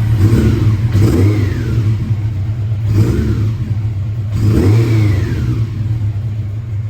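1992 Honda CB750 Nighthawk's air-cooled inline-four running, revved three times with the throttle, each rev rising and falling back to idle. The owner says it still needs a couple of things done to run better.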